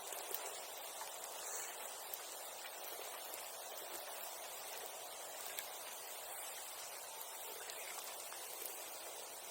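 Bonfire burning with a steady hiss and a few small sharp crackling pops.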